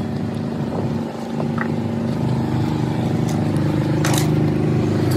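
An engine running steadily, picking up slightly about two and a half seconds in, with a single sharp knock about four seconds in.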